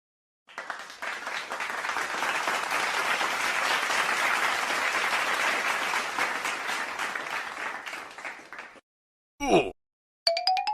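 Crowd applauding and clapping for about eight seconds, tapering off toward the end. It is followed by a brief downward-sliding tone, and near the end a rising, fluttering tone begins.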